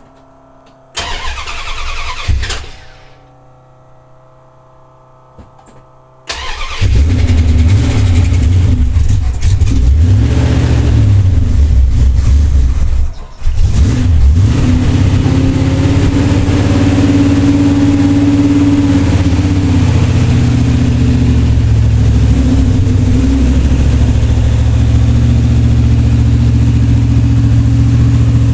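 1971 Plymouth Cuda V8 muscle car cold-starting after sitting for a week. A short first crank about a second in dies away without catching. About six seconds in a second crank catches and the engine runs with a rumble, dips sharply for a moment about thirteen seconds in, then keeps running steadily on a cold idle.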